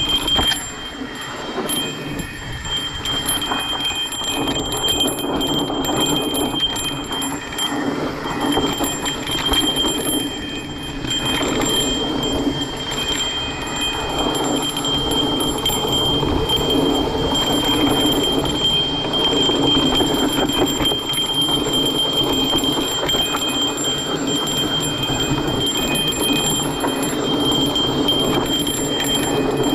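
Mountain bike rolling downhill on a dirt trail: tyres on loose dirt and the bike rattling over bumps, with a steady high-pitched whine running throughout.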